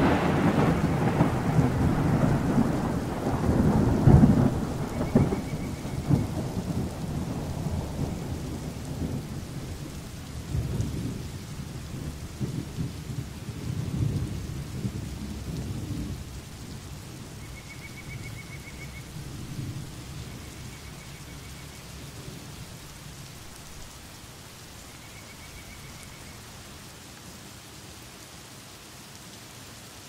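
Thunder rumbling over steady rain, the rumble swelling again about four seconds in and then dying away over the first half, leaving the rain alone.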